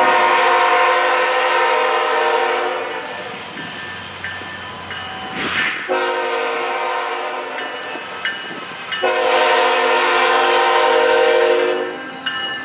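Air horn of a CSX GE ET44AH locomotive blowing for a grade crossing as the freight train approaches: a long blast, a shorter one about six seconds in, and another long one from about nine seconds in, each a chord of several notes, over the rumble of the train.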